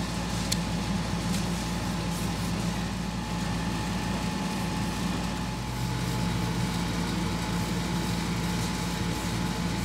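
A steady low mechanical hum of background machinery running, with a couple of faint light clicks about half a second and a second and a half in.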